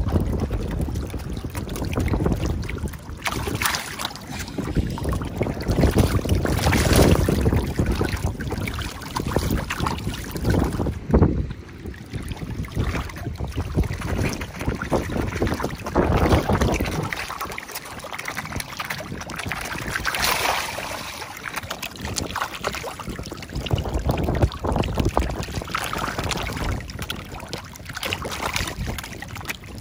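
Dozens of mullet splashing and thrashing in shallow water as they mob a piece of bread, an irregular continuous splashing, with wind noise on the microphone.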